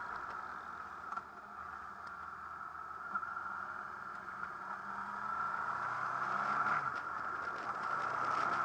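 Motorcycle riding sound from a camera on a Honda VFR800 VTEC: steady wind rush over the running V4 engine, at a steady cruising pace.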